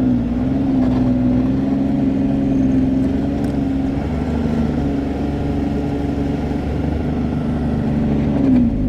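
Ski-Doo Skandic utility snowmobile engine running steadily in low gear as it pushes through unbroken snow. The engine note falls as the machine slows near the end.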